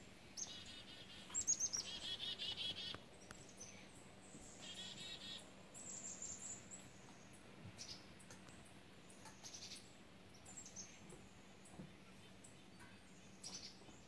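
Black-capped chickadees calling: a few quick runs of rapidly repeated buzzy notes in the first six seconds, then scattered short, high chirps.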